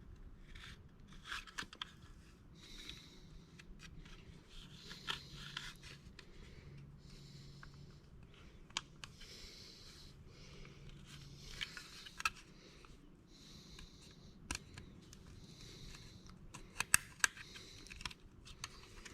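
Faint crinkling, scraping and small sharp clicks of 3M vinyl wrap film being handled, pressed and peeled by hand around a door handle. A few louder clicks come near the end.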